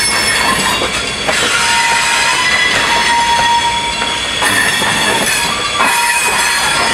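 Freight train's gondola cars rolling past, steel wheels on the rails squealing with several steady high tones over a continuous rolling rumble and clatter.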